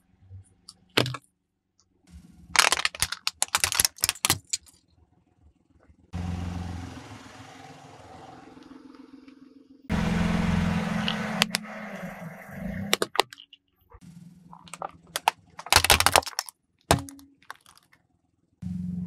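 A car tyre crushing small plastic objects on asphalt: clusters of sharp cracks and crunches a few seconds in and again near the end. Between them the car's engine and tyres rolling on the road give a steady low rumble.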